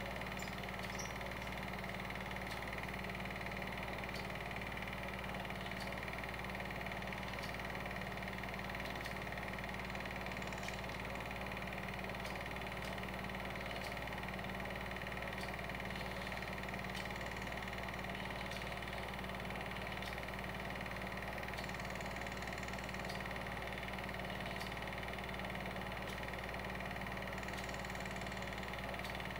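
Film projector running: a steady motor hum and whirr, with faint clicks every second or so.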